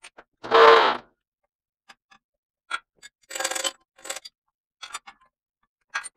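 Metal clinks and clanks of steel tooling being handled on a horizontal boring mill's boring bar and cutter head, starting with a louder clank that rings briefly about half a second in. Scattered light clinks follow, with a short scraping rattle a little past the middle.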